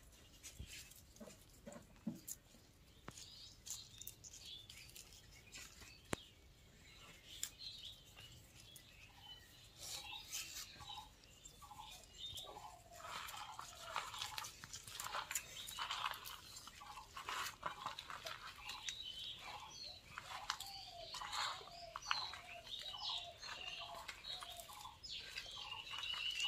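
A hand mixing cut green jujube pieces with spices, herbs and dried chillies on a banana leaf: soft, irregular clicks and crackles of fruit and leaves being pressed and tossed together. From about halfway, birds chirp over and over in the background.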